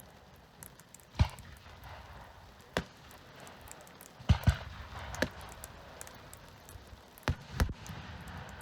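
Fireworks going off: about seven sharp bangs of bursting shells, two of them in quick pairs, with a crackling haze between the bangs.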